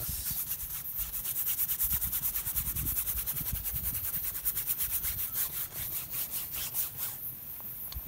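Paintbrush loaded with oil paint scrubbed rapidly back and forth across stretched canvas: a scratchy rubbing of several quick strokes a second that stops about seven seconds in.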